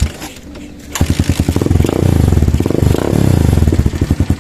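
Kawasaki Wind 125's single-cylinder four-stroke engine starting up about a second in. It runs louder for a moment, then settles into an even, steady beat. Freshly tuned up, it runs cleanly with no backfire.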